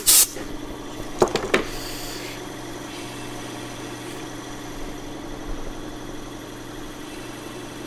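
Consew 1725 RPM industrial sewing machine clutch motor switched on and running with a steady hum, with a few sharp clicks about a second and a half in.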